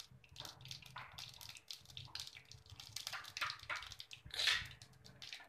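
Mustard seeds crackling and popping in hot oil in a metal kadhai, a rapid, irregular run of small pops. About four seconds in, a brief louder sizzle as cumin seeds go into the oil.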